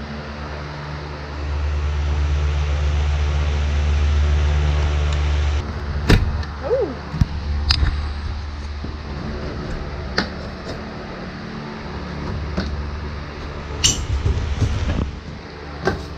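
A steady low mechanical hum, then sharp knocks and clanks, a second or two apart, from a school bus window frame being worked loose and pushed out of its opening.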